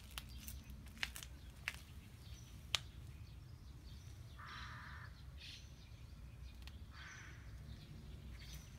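A crow cawing twice, a harsh call about halfway through and a fainter one a couple of seconds later, over a steady low outdoor hum. A few sharp ticks come in the first three seconds.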